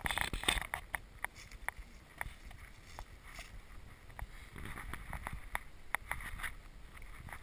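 Wind rumbling on the microphone outdoors, with scattered light crunches and clicks of footsteps on dry mulch and leaves.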